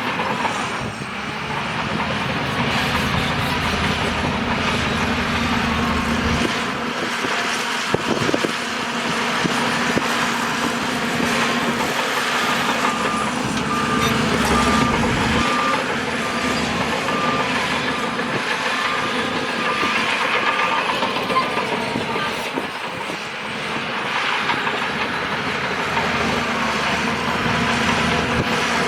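Crawler bulldozer at work, its diesel engine running steadily under load. A reversing alarm beeps for several seconds in the middle, about twice a second, as the dozer backs up.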